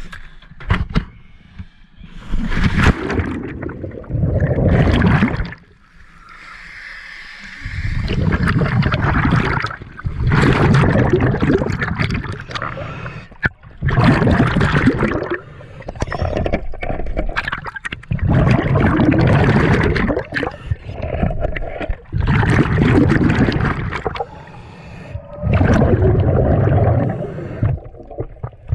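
Seawater sloshing and gurgling around an underwater camera just below the surface, in loud surges a few seconds apart with quieter spells between.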